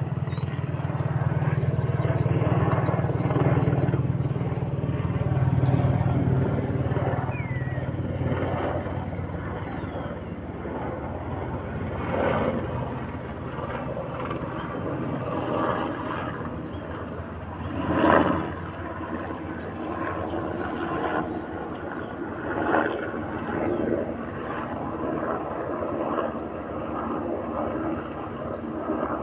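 UH-60M Black Hawk helicopter flying past, with a steady low rotor and engine drone that is strongest in the first few seconds and then weakens as it moves off. A few brief louder bursts of noise come through, the loudest about 18 seconds in.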